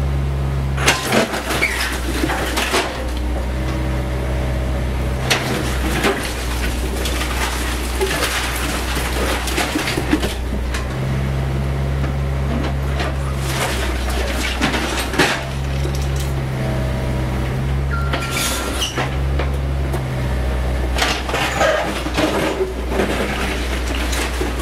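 CAT 304E CR mini excavator's diesel engine running steadily, its pitch and level shifting as the hydraulics take load, while the steel bucket scrapes and knocks through broken concrete and brick rubble with repeated cracks and clatters of falling debris.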